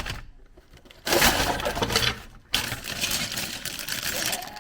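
LEGO set packaging and bagged pieces being handled, rustling and rattling. The noise starts loudly about a second in and carries on more unevenly after that.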